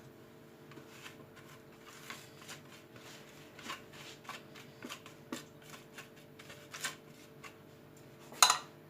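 Ground ghriba cookie crumbs being emptied and scraped into a bowl: light scattered taps and rustling, with one sharper knock about eight and a half seconds in.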